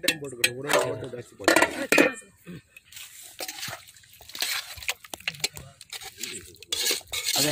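A metal spoon clinking and scraping in a steel pan of chicken gravy, with dishes clattering and people's voices. The loudest sounds are two sharp clinks about one and a half to two seconds in.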